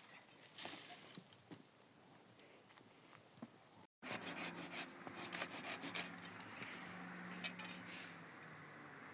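Wood being worked by hand: quiet scattered knocks and rubs, then, after an abrupt cut about four seconds in, louder rasping strokes on wood.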